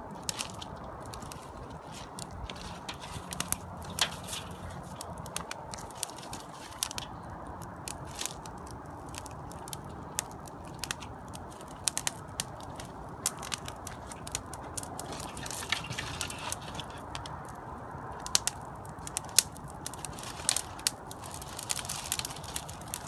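Bonfire crackling and popping: irregular sharp snaps over a steady low hiss.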